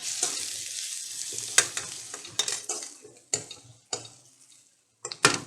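Onions, chillies and curry leaves sizzling in hot oil while a spatula stirs them, clicking and scraping against the pan. The sizzle fades after about three seconds, and a few sharper taps on the pan come near the end.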